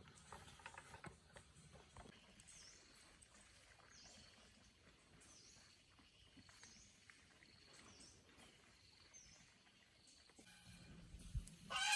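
Near silence with faint, high bird-like chirps repeating about once a second. A louder honking call starts right at the end.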